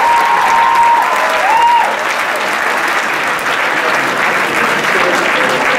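Audience applauding, with a few high rising-and-falling calls over the clapping in the first two seconds.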